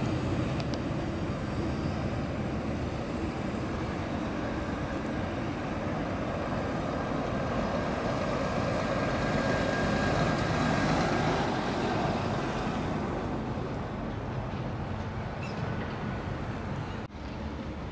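Articulated city tram running on its rails, with a steady rumble of wheels on track and running gear mixed with street traffic. The sound grows a little louder around the middle, then fades as the tram moves off.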